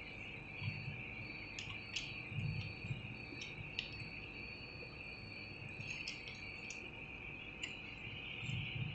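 A cricket trilling steadily at a high pitch, with faint clicks and a few soft knocks from metal parts of a soft-starter contactor being handled with a screwdriver.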